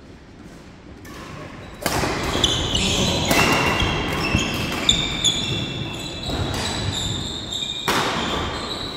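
A badminton doubles rally starting about two seconds in: rackets striking the shuttlecock with sharp pops, and court shoes squeaking on the wooden hall floor.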